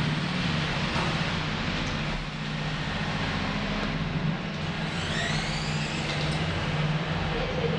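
Four small gearmotors of a homemade RC car running as it drives over floor tiles: a steady whir over a low hum, with a brief rising whine about five seconds in.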